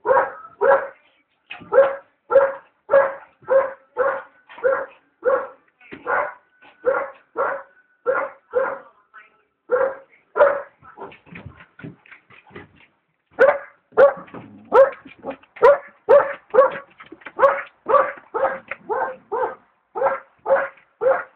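Alaskan Malamute puppy barking over and over in short, sharp barks, about two a second, with a brief pause about nine seconds in and another about thirteen seconds in.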